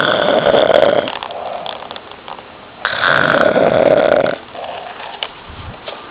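A man snoring loudly: two long, loud snores about three seconds apart, with quieter breaths between them.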